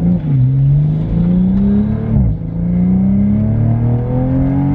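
Toyota A90 Supra with an Extreme Online Store cat-back exhaust and catless downpipe, heard from inside the cabin while accelerating in sport mode. The deep engine and exhaust note rises in pitch, drops at an upshift about two seconds in, then climbs again.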